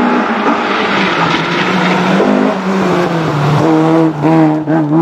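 Opel Kadett GTE Group 2 rally car's four-cylinder engine revving hard as the car comes up the road and passes close by. About four seconds in the engine note dips briefly twice before steadying again.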